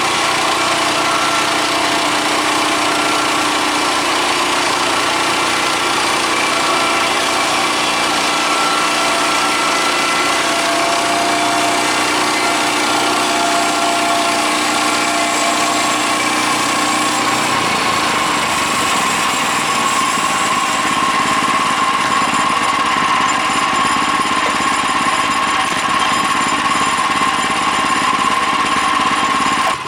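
Woodland Mills HM126 portable bandsaw mill running steadily, its gas engine driving the band blade through a cottonwood log. The pitch and tone of the machine shift about eighteen seconds in.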